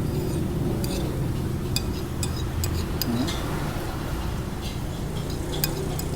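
Light clinks of a spoon against a plate during eating, a dozen or so scattered short ticks, over a steady low rumble of street traffic.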